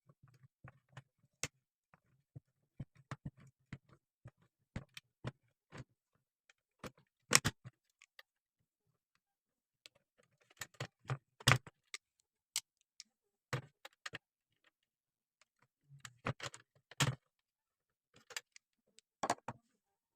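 Irregular small clicks, taps and light metallic knocks of parts and tools being handled, a few of them louder.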